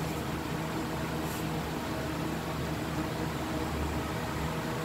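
Britânia Turbo electric pedestal fan running steadily: an even rush of air over a low motor hum. Its motor bushings are freshly lubricated.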